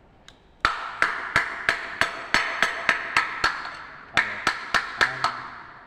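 A quick run of sharp, ringing knocks, about three a second: ten or so, a brief pause, then five more.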